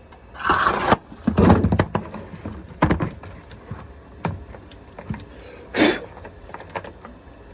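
A chainsaw being handled on a workbench: scattered clunks, knocks and clicks, with two short rushing scrapes, one near the start and one near the end. The saw is not running.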